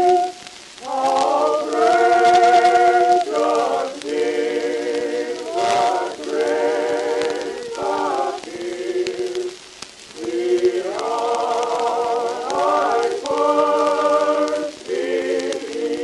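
Choral music: a choir sings slow, sustained chords with a slight waver in pitch, each held a second or two, with brief breaks between phrases.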